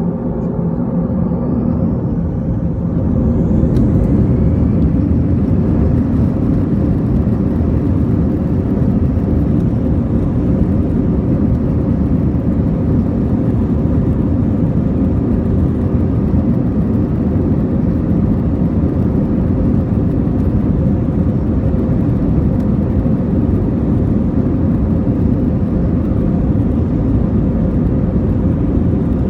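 Airbus A321 jet engines spooling up: a rising whine and swelling noise over the first few seconds, settling into a steady, loud rumble at takeoff thrust.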